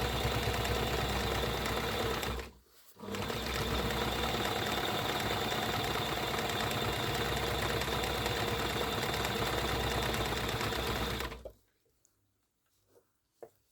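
Toyota domestic sewing machine running steadily as it stitches a rucksack strap, stopping briefly about two and a half seconds in, then running again until it stops near the end, after which there are only a few faint clicks.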